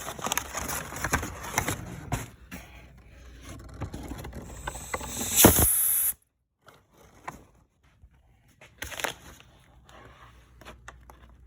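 Compressed air from a blow gun hissing into the oil passages of a Honda K24A VTC cam gear, with scattered clicks and rattles. It is loudest in a strong blast about five seconds in, then cuts off suddenly, and a shorter burst of air follows about three seconds later. The air pressure is releasing the gear's locking pin so the gear can turn.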